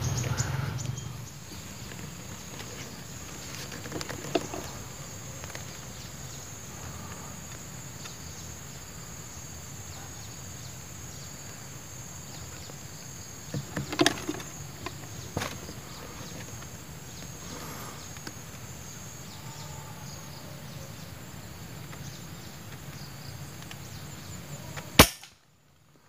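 Steady high-pitched insect drone in the trees, with a few faint clicks and knocks, then a single sharp crack of an air-rifle shot about 25 seconds in, after which the sound cuts off.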